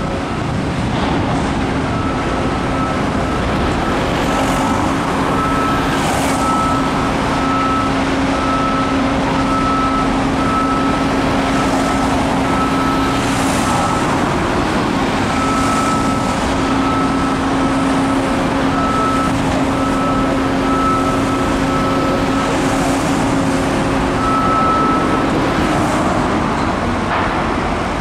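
Construction-site machinery and street traffic: a steady engine hum under even traffic noise, with a high electronic beep repeating through most of the stretch.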